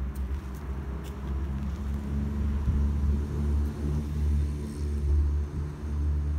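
A low, uneven rumble that swells and dips over a few seconds.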